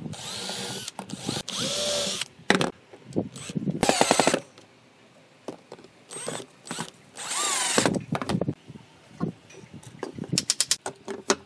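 Cordless drill/driver driving screws through a small steel hinge into pine, its motor whining up and winding down in several short bursts. A quick run of clicks near the end.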